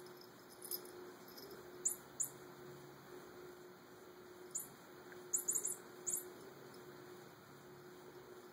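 A kitten batting a toy mouse that dangles from a cat tree: a scatter of short, high jingles, a few at a time, over a steady low hum.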